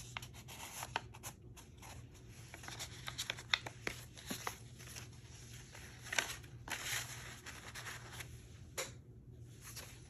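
Paper rustling and sliding as a journaling card is tucked into its envelope pocket and the journal's paper pages are turned, with irregular soft crinkles and light taps.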